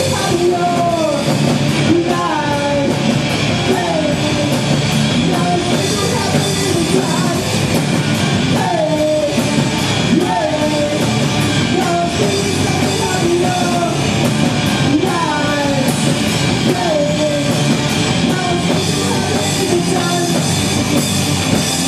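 Rock band playing live on electric guitars, bass guitar and drum kit, with a melodic line gliding down in pitch over them again and again.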